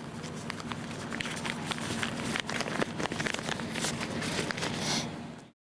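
Newspaper pages rustling and crinkling in the hands as the paper is unfolded and leafed through, over a steady low hum. The sound cuts off suddenly near the end.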